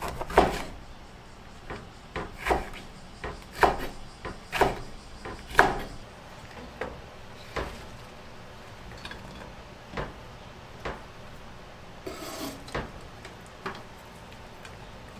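A kitchen knife chops yellow peppers on a wooden cutting board, five firm chops about a second apart. Then come lighter knocks and a brief scrape as cut vegetables are put into a frying pan.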